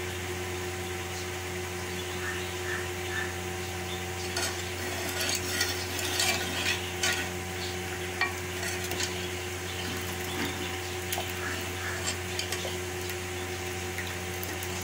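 Steel ladle stirring and scooping rasam in a steel pot, with scattered clinks and scrapes of metal on metal and the liquid sloshing. A steady low hum runs underneath.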